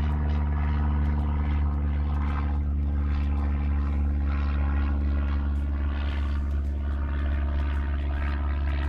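Boat motor running steadily at a low, even speed, with a deep hum that does not change.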